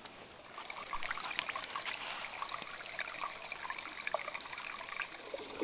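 A small trickle of water running through a hole in the rock into a shallow pool, a steady patter that comes up about a second in. It is all that is left of the waterfall in the dry season.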